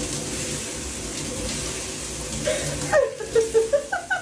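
Water running steadily from a tap. About three seconds in, short high-pitched voice sounds start over it.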